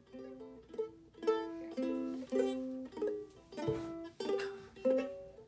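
Background music: a light tune of plucked-string notes, struck and fading, with several notes a second.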